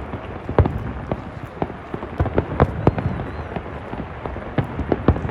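Fireworks going off in quick, irregular succession: many sharp bangs and pops, several a second, over a steady background haze.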